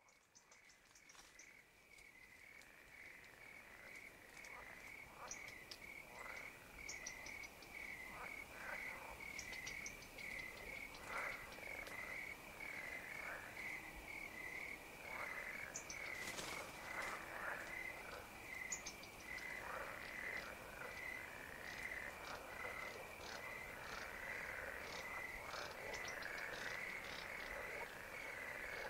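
Night chorus of pond frogs calling irregularly over a steady, pulsing high trill of crickets, with scattered high chirps. It fades in over the first several seconds.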